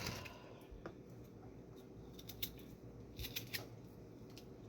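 A raw potato being peeled by hand: a few short, faint scraping strokes of the blade on the skin, spaced irregularly.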